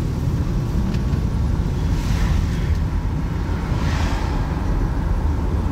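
Steady low road and engine rumble heard inside a moving car's cabin, with two brief whooshes of passing traffic, about two seconds in and again near four seconds.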